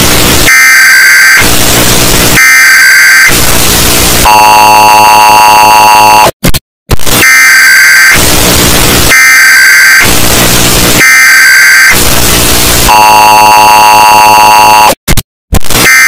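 Emergency Alert System alarm, boosted until it distorts into harsh clipped noise. A shrill alarm tone alternates about once a second with bursts of noise, then a lower buzzing tone holds for about two seconds. After a brief cut the sequence repeats.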